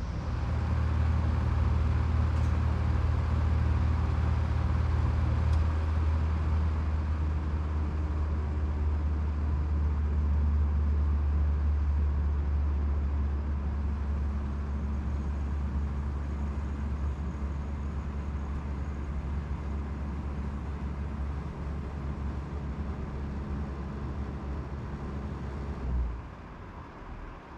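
General Electric Zoneline packaged terminal heat pump running in cool mode: a steady low hum with a rush of blower air over it. About 26 seconds in there is a brief surge, then the hum cuts out and only a quieter air rush remains as the unit shuts down.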